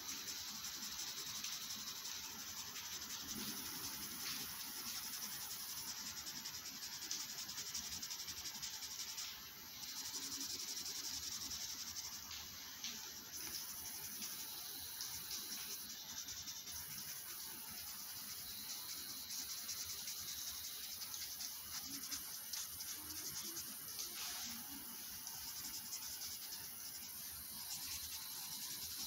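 Steady high-pitched hiss with a faint chirr, and light rustles and taps here and there.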